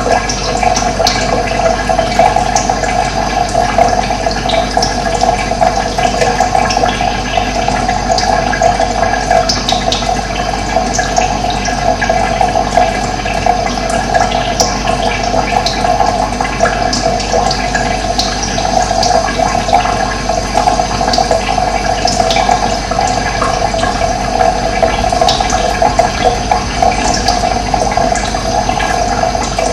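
Running water, a steady, unbroken rush.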